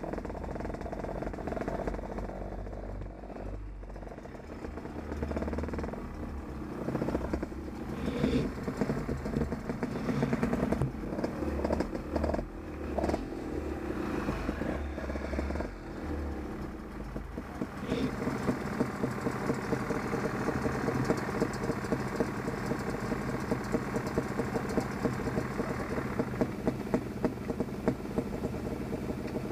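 Off-road motorcycle engine running at low revs. The revs rise and fall unevenly at first, then settle into a steady, rapid pulsing from about two-thirds of the way through.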